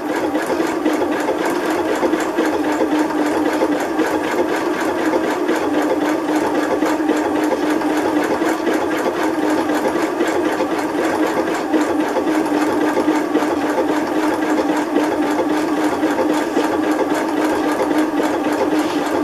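Janome domestic sewing machine stitching steadily at lowered speed, the needle ticking evenly over a constant motor hum, as it works a decorative stitch around a curve.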